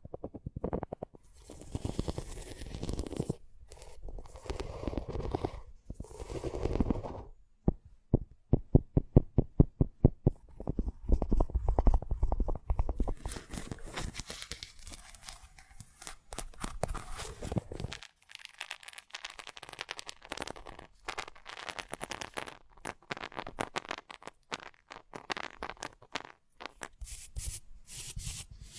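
Close-up hands working open a large bean pod: rubbing, scraping and tearing with crackles. A quick run of clicks, about eight a second, comes around eight seconds in, and low rumbling handling noise follows.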